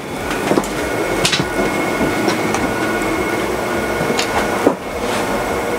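A steady machine noise with a faint constant whine, like a running fan or motor, with a few light knocks.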